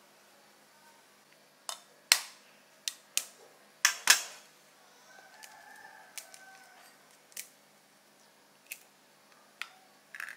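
A hen's egg being handled and cracked open over a bacon-lined pumpkin on a metal baking tray: a series of sharp taps and clicks, the two loudest about two and four seconds in, then lighter clicks as the shell is pulled apart.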